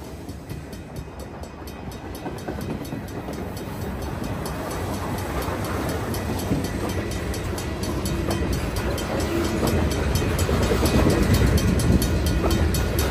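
Freight train cars rolling past at close range: empty bulkhead flatcars, then tank cars. Their steel wheels rumble and click over the rails, growing steadily louder.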